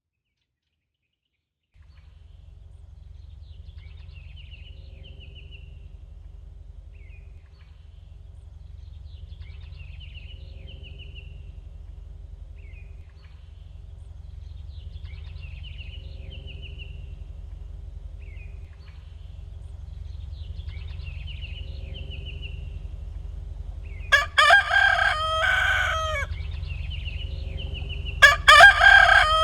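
Recorded bird chirping in short phrases every few seconds over a low steady rumble, gradually growing louder. Near the end a rooster crows twice, each crow about two seconds long and much louder than the birds, sounding as the end-of-timer alarm.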